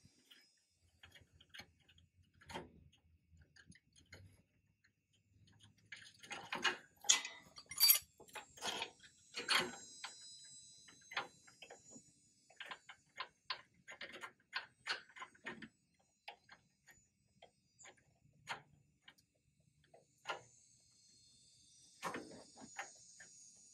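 Hand tools clicking and clinking against the metal fittings of a brake line being unscrewed: scattered light ticks, a louder cluster of clanks about six seconds in, then a quick run of ticks.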